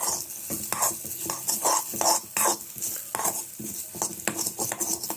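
A spoon stirring almonds, cashews and makhana in a kadhai with hot ghee: irregular scraping and clattering against the pan over a light sizzle.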